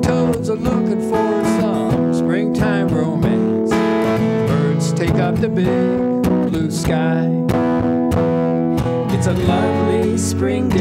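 Two acoustic guitars strummed and picked together, playing a folk song, with a voice singing over them at times.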